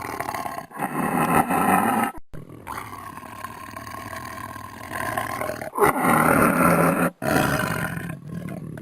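Lion roaring: a run of deep, rough roars, loudest about a second in and again about six seconds in, with quieter calls between. The sound cuts off abruptly twice, as if separate roars were spliced together.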